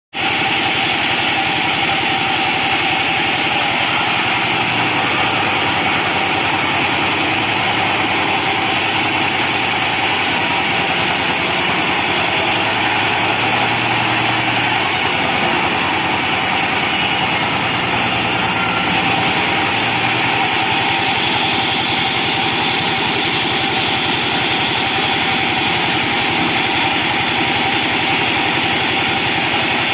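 Band sawmill running steadily with a constant loud machine drone, its tone shifting slightly about two-thirds of the way through.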